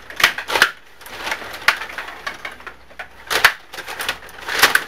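Table hockey in play: irregular sharp plastic clacks and rattles of the spun and pushed rods, the player figures and the puck, a few strong knocks among smaller clicks.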